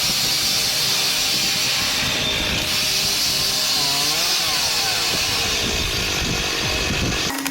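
Chainsaw running and cutting firewood, with its engine pitch sagging and recovering under load about halfway through; the sound cuts off suddenly near the end.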